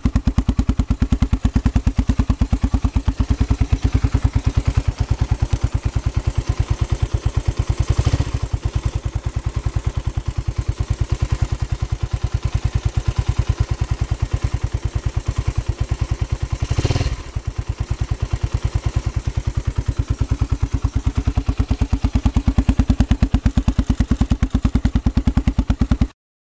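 Gilera Saturno single-cylinder motorcycle engine running steadily with an even rapid beat, a flickering high squeal riding on top: the 'kyuru-kyuru' abnormal noise the owner is trying to trace. Two brief louder disturbances come about a third and two-thirds of the way through.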